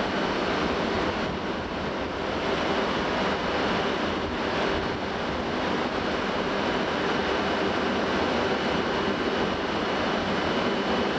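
Diesel railcar set standing at the platform with its engines idling: a steady, unbroken rumble and hiss with a faint constant hum.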